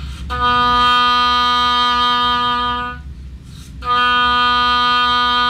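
Oboe playing the same long, steady low B twice, with a short break about three seconds in. This is a playing test of the low C-sharp to B trill keys after adjustment, checking that low B sounds as well with the low C key as with the C-sharp key.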